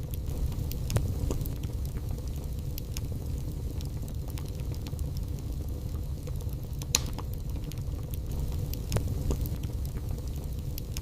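Burning wood logs in a fireplace: a steady low rumble with scattered sharp crackles and pops, the loudest about a second in, at about seven seconds and at about nine seconds.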